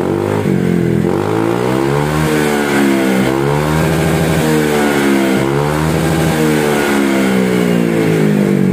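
Honda PCX 160 scooter's single-cylinder engine being revved through an SKR aftermarket exhaust, its pitch climbing and falling back about three times.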